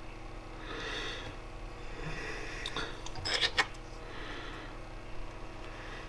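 Small plastic action-figure parts handled and pressed together, with a few light clicks near the middle and soft rubbing, over a steady low electrical hum.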